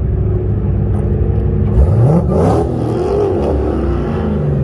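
Modern Mopar Hemi V8 rumbling at low speed, with one quick rev whose pitch climbs sharply about two seconds in.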